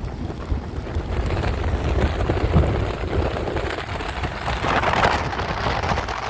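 Passenger speed boat under way: a steady low engine rumble beneath a rushing hiss of water and spray. The rush swells briefly about five seconds in.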